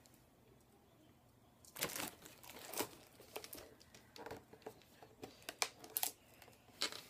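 Headset packaging being handled: the cardboard box and its insert rustle and crinkle in irregular bursts, starting about two seconds in.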